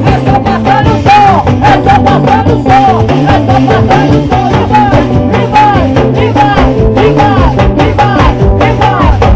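Amplified live band playing upbeat swingueira (Bahian pagode) at a sound check: loud, continuous music with a steady, quick drum beat.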